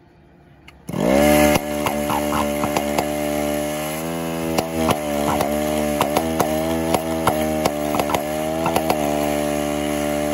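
Small two-stroke string-trimmer engines of a six-engine RC puller, starting up about a second in with a brief rise in pitch, then running at a fairly steady pitch with irregular sharp pops.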